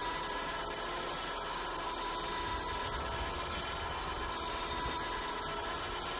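Champion 2000 lb 12-volt electric winch on the front of a John Deere Gator running under load, winding in its steel cable to drag a pile of boards: a steady motor whine.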